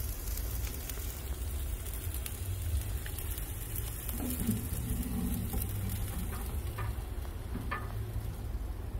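Marinated chicken pieces sizzling on the grate of a charcoal grill over very hot coals, with wind rumbling on the microphone.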